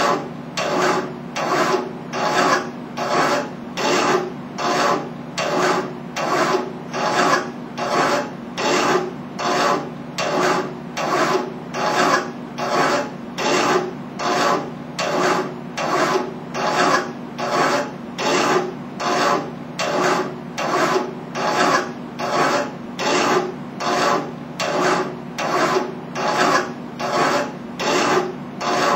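Hand file rasping back and forth across a metal tube clamped in a bench vise, in steady, even strokes about four every three seconds.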